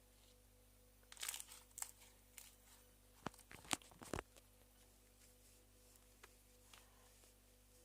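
Slime being squeezed and stretched by hand: a run of crackles and sharp pops starting about a second in and ending after about three seconds.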